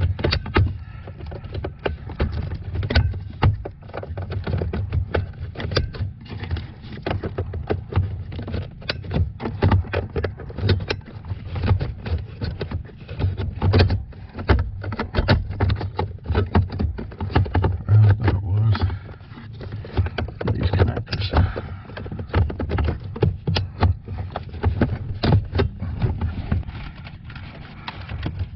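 Dense, irregular clicking, tapping and rustling of a car's wiring harness and plastic connectors being handled and pushed into place under the dashboard, over low bumps and thuds of handling.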